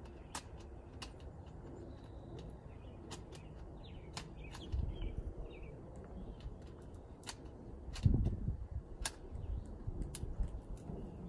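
Scattered small clicks and handling knocks as a lens is fitted to a mirrorless camera and the camera is handled on a rig, with a heavier thump near the middle and a louder one about eight seconds in.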